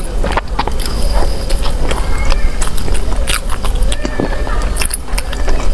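Close-up eating sounds: bread being chewed, with many small wet mouth clicks over a steady low hum.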